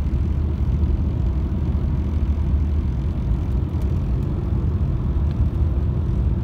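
Steady low rumble of a moving car heard from inside the cabin: engine and tyre road noise while driving.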